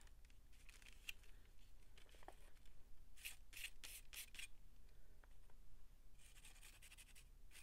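Faint rubbing and scratching strokes on a gessoed paper card, with a quick run of about five strokes about three seconds in and a softer scraping stretch near the end.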